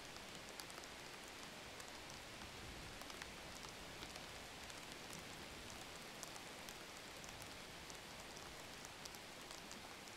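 A steady, rain-like hiss with faint, irregular ticks scattered through it.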